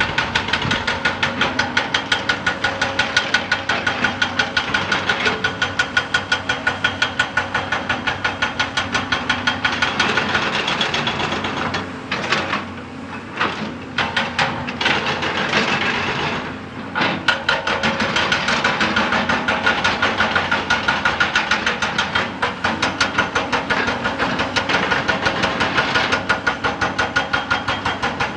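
Excavator-mounted hydraulic rock breaker hammering rock in a rapid, steady train of blows, several a second. It stops and starts a few times around the middle before running steadily again.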